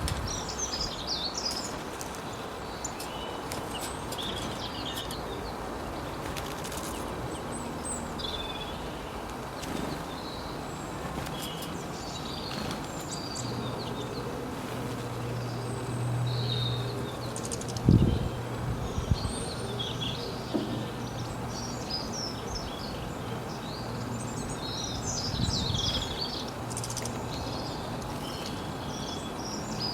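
Small birds chirping and twittering in short, scattered calls over a steady background hiss. A low hum comes in about halfway through, and a single sharp knock sounds a little after it.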